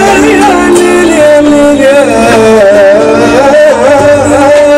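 Live Middle Eastern music on an electronic keyboard: a slow, ornamented melody with a wavering, string-like tone over held chords, opening a melancholy song.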